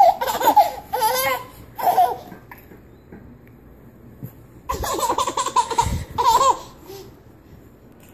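A baby laughing hard in two bouts of giggling, one at the start and another about halfway through, with a quieter pause between them.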